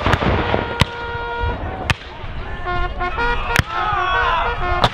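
Black-powder muskets firing: about five scattered, separate shots across the field. Under them a steady held pitched tone sounds, with voices.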